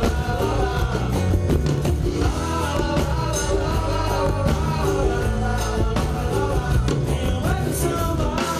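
Live samba-rock band playing a passage between sung lines: acoustic guitar and a small stringed instrument over a steady bass line and regular percussion.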